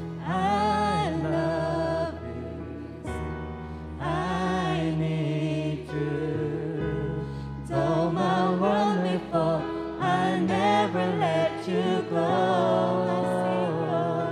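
Live worship band playing a slow worship song: several voices sing sustained phrases with a pause between lines, over keyboard, acoustic guitar and bass.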